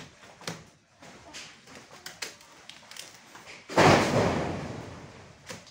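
Scattered light knocks, then about four seconds in a sudden heavy crash followed by a rustling noise that fades over about a second and a half.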